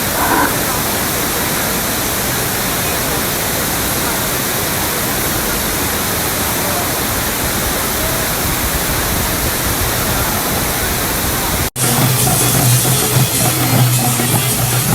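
Steady rush of falling water, an even hiss with no change. After a sudden cut near the end, music with drums starts.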